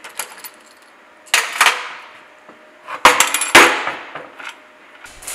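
Metal clanks from the cast-iron gearbox casing and a hand tool being handled and set down on a steel welding table: a few light clicks, then two pairs of loud, ringing clanks.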